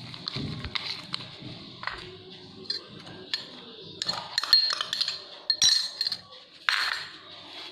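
Wire hand whisk clicking and scraping against a plastic bowl as thick hung curd is beaten with powdered sugar, in irregular strokes that grow louder in the second half.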